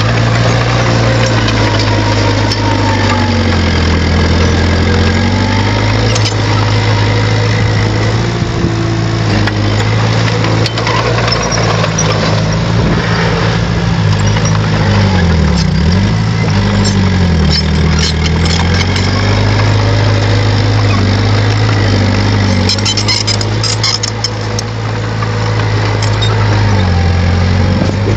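Bulldozer's diesel engine running loud and close while it pushes soil, its note dipping under load and recovering several times. A burst of sharp clicks and clanks comes a little before the end.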